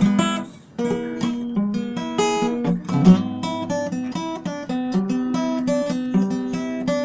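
Acoustic guitar playing a melody of plucked notes over chords, with a short break about half a second in before the playing resumes.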